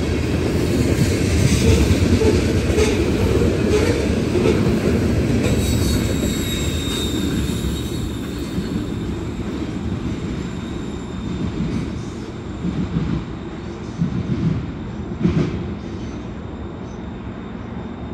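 Freight train tank cars rolling past, wheels rumbling and clattering on the rails with a thin wheel squeal. The sound fades as the last car, a covered hopper, pulls away, with a couple of louder knocks near the end.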